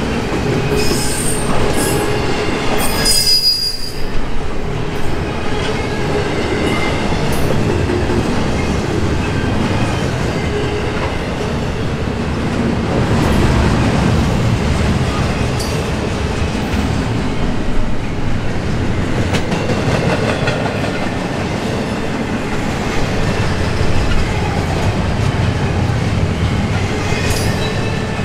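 Double-stack intermodal container cars of a freight train rolling past, a steady rumble of steel wheels on rail. Brief high wheel squeals cut in during the first few seconds, the loudest about three seconds in, and again near the end.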